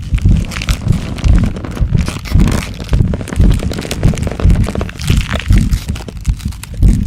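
Transformation-growth sound effect: a dense, irregular run of crunches and cracks over heavy low thuds, made to suggest a body growing and changing shape.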